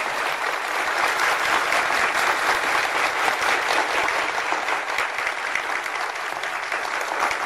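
Sustained applause from a crowd, many hands clapping at once.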